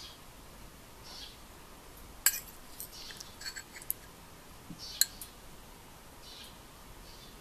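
A metal spoon clinks and scrapes against a ceramic bowl of thick beef stew while scooping. There are two sharp clinks, about two and five seconds in, with lighter taps between them.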